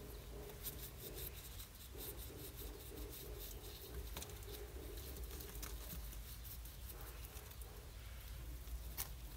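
Young rabbits shuffling and nibbling in dry hay and leaves: an irregular patter of small soft clicks and rustles over a low rumble, with one sharper click near the end.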